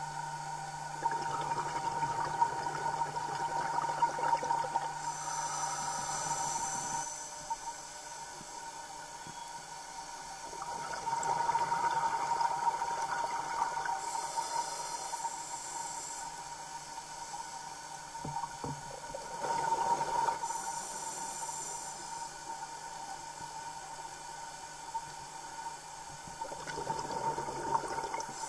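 Scuba diver's breathing heard underwater: exhaled bubbles gurgle up in a burst about every eight seconds, with a short regulator hiss between bursts, over a steady hum.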